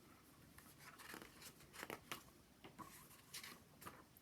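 Near silence with faint paper rustling and a few soft ticks, typical of a book's page being turned.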